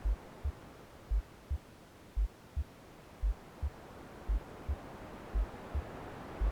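Slow heartbeat of a womb-sound soundscape: low double thumps (lub-dub), the first of each pair heavier, repeating about once a second, over a soft steady hiss of white noise.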